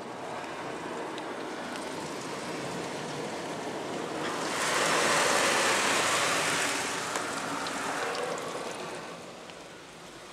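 Automatic car wash's polyethylene brushes and water spray scrubbing over the car, heard from inside the cabin: a steady wet swishing that swells loudest for a couple of seconds midway as a brush sweeps across the glass, then fades.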